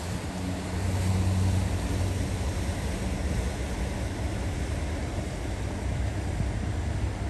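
Superyacht's engines giving a steady low hum, a little louder about a second in, over a steady hiss of wind and water.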